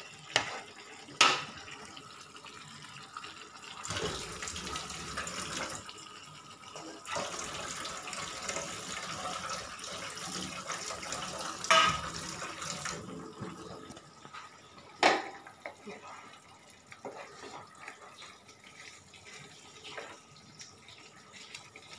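Water poured into a pan of simmering jackfruit and potato curry, in two pours (a short one about four seconds in, then a longer one), with a few sharp clinks of a metal spatula against the pan.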